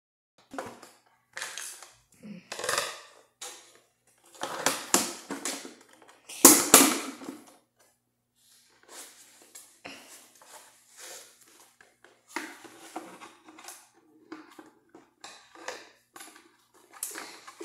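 Rustling and crinkling of toy packaging being handled in irregular bursts, loudest about six and a half seconds in.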